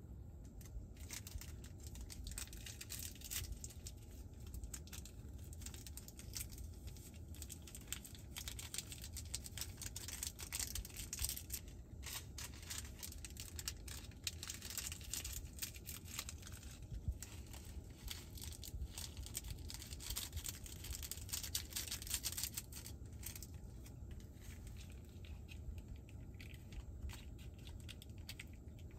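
Crinkling and tearing of an instant noodle cup's paper lid and plastic seasoning sachets as they are peeled, torn open and squeezed out. It is a dense run of small crackles that thins out in the last few seconds.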